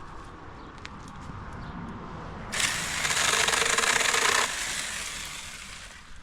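Saker cordless electric mini chainsaw cutting into a dry, dead branch: the motor runs at first, then a loud burst of cutting for about two seconds begins a little past two seconds in and dies away over the next second or so.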